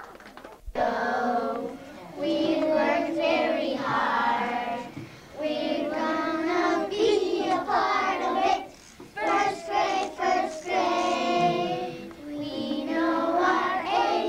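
A class of young children singing a song together, starting about a second in, in phrases broken by short pauses.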